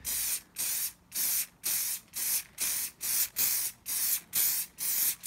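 Aerosol can of Muc-Off Fabric Protect spraying onto a motorbike jacket in short, rapid bursts, about two a second, each a quick hiss with a brief gap between.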